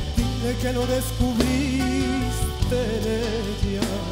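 A man with a flamenco-tinged voice singing a slow ballad live, holding long notes with a wavering vibrato, over instrumental accompaniment with steady low bass notes.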